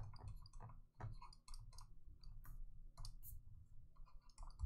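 Faint, irregular clicking and tapping from handwriting input on a digital whiteboard, one click per pen stroke as words are written out.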